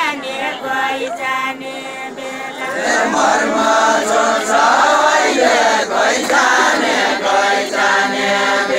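Deuda folk song sung by a ring of dancing men and women. A few voices carry the line at first, then about three seconds in the whole group comes in louder in chorus.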